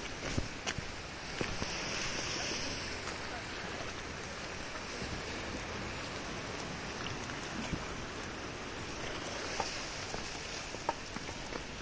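Sea washing against a rocky shore: a steady rush that swells twice, with a few sharp clicks in the first second or so.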